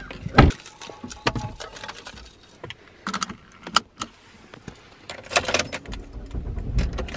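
Car keys jangling amid clicks and knocks inside a car: a loud thump less than a second in, a drink tumbler set into the plastic cup holder, and the key slid into the ignition. Near the end a low engine rumble comes up as the car starts.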